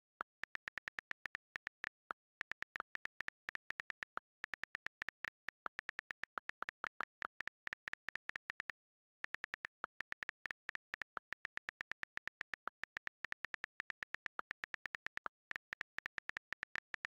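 iPhone on-screen keyboard key clicks as letters are typed rapidly, a fast run of crisp ticks, several a second. The run breaks off briefly a few times, longest near the middle.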